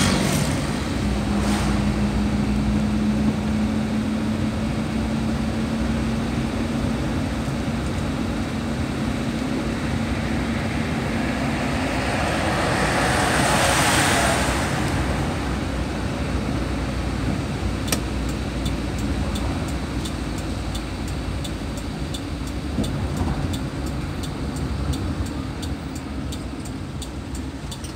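A vehicle driving along a road: steady tyre and road noise with an engine hum through the first dozen seconds. About halfway, a louder rush swells and fades as a motorcycle passes close alongside, and faint regular ticking comes in over the last third.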